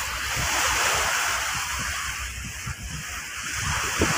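Sea water rushing and splashing alongside a moving ferry, with wind gusting on the microphone.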